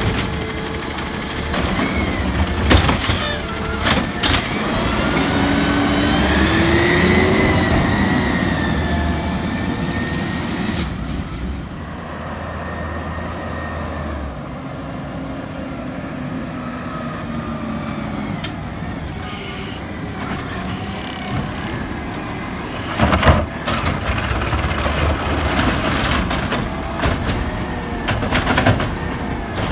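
Natural-gas Peterbilt garbage truck with a McNeilus automated side-loader: the engine revs while the hydraulic arm whines up and dumps a cart, with clanks of the cart against the hopper. Quieter for a stretch in the middle, then loud bangs a little over twenty seconds in as another cart is grabbed and dumped.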